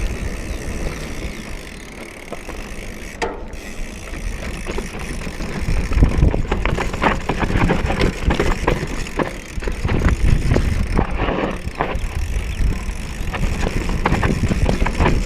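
Mountain bike riding over a dirt trail: tyres on the ground and the chain and frame rattling, with wind rumbling on the microphone. The rattling gets louder and busier about six seconds in, as the ground gets rougher.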